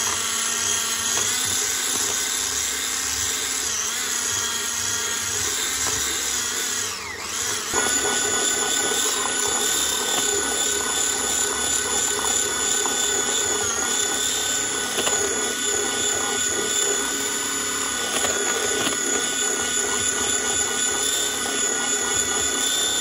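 Electric hand mixer with twin beaters running steadily, whipping instant cake-cream powder with cold milk into whipped cream. Its whine dips briefly about seven seconds in, then runs on steadily.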